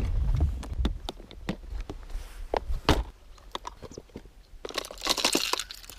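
Clear plastic tackle box of fishing lures being handled: a run of sharp plastic clicks and knocks as lures are picked through in their compartments, with a brief rustling scrape about five seconds in.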